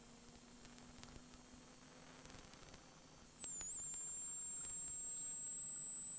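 A steady, high-pitched electronic whine over faint hiss, wavering briefly in pitch a little past the middle. No engine sound is heard.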